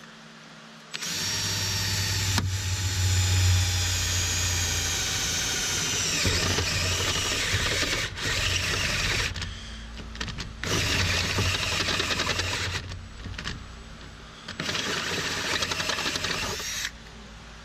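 Pneumatic air drill boring a 5/8-inch hole through the vehicle's sheet-metal body panel. It whines steadily for about five seconds, dropping in pitch as the bit bites. Then it runs in several shorter trigger bursts.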